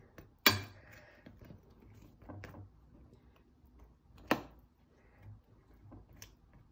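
A metal spoon clinking against a stainless steel bowl while spooning yogurt: two sharp clinks, about half a second in and again about four seconds in, with faint softer taps between.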